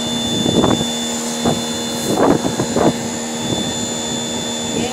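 Pressure washer motor running with a steady, even hum, with a few short irregular bursts of spray noise over it.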